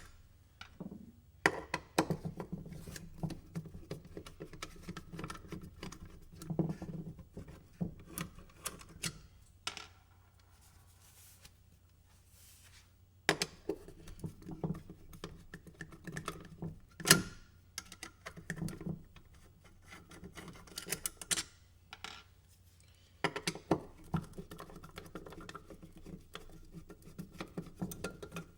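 Irregular clicks, scrapes and light knocks of a Phillips screwdriver backing out small bolts and handling a plastic sprocket cover, with a few quieter pauses and one sharper knock about halfway through.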